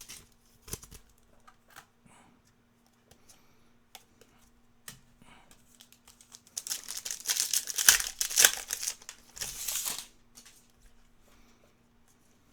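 Trading-card pack's foil wrapper being torn open and crinkled, loudest a little past the middle for about three seconds, with light clicks and rustles of cards being handled before and after.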